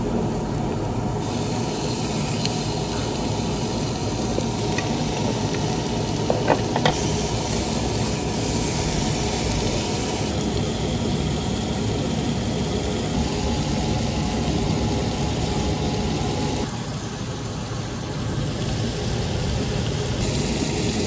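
Thinly sliced meat sizzling on a hot round griddle plate, a steady hiss over a low rumble, with a couple of sharp clicks about six to seven seconds in.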